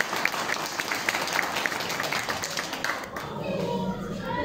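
Audience applauding, a dense patter of clapping that thins out and dies away about three seconds in.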